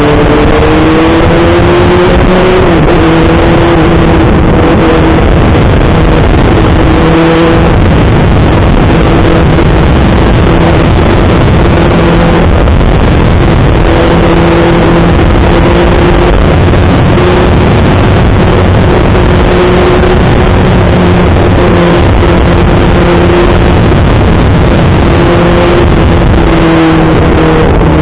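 Kawasaki ZX-6R 636 inline-four engine running at a steady high speed while being ridden, one high drone that rises and dips slightly, over a dense rushing noise.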